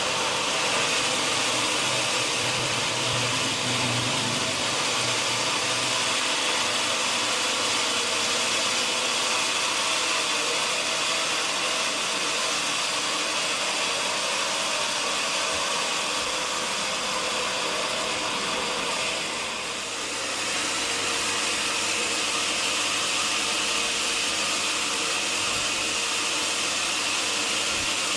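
Sawmill machinery running with a steady, high, hissing whine over several fixed tones. The sound dips briefly about twenty seconds in, then carries on.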